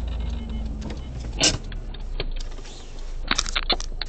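Car engine idling with a low steady hum, then a series of sharp clicks and knocks: one loud one about a second and a half in, and a quick cluster near the end.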